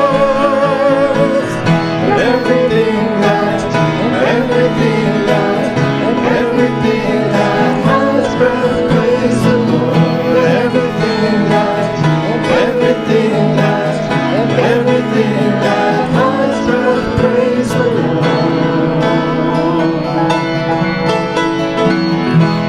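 Instrumental break in a worship song, played on plucked string instruments. A singer's last held note, wavering with vibrato, ends about a second and a half in.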